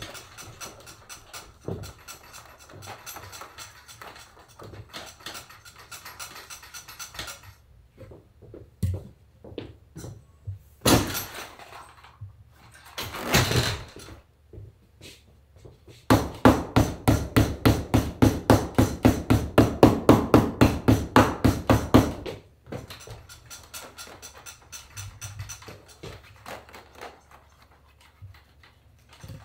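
Leather being handled, with two short rubbing sounds, then about six seconds of rapid, even tapping on the leather saddle seat as it is worked down to compress its wrinkles.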